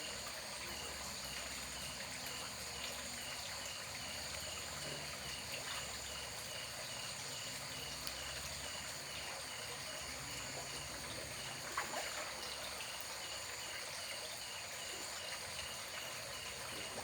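Steady trickle of running water, with insects trilling in several steady high tones and a short chirp repeating about twice a second.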